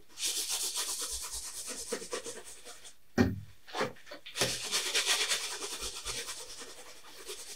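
A cloth rag rubbing across an oil-painted canvas on an easel, in two long spells of scrubbing, wiping back the wet paint so the colour underneath comes through. There is a short thump about three seconds in.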